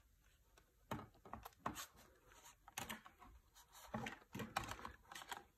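Faint, irregular clicks and rustles of a disc being taken out of a cardboard digipak and off its plastic hub, with the card panels handled.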